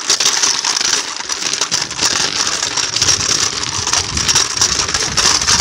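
Dense crackling and rustling from a phone's microphone being handled while moving outdoors, with a low wind rumble building from about two seconds in.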